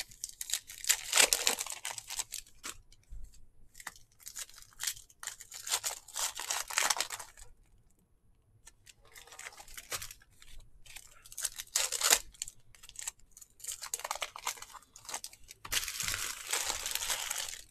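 Foil trading-card pack wrappers crinkling and tearing as packs are ripped open by hand, in several bursts with short pauses between.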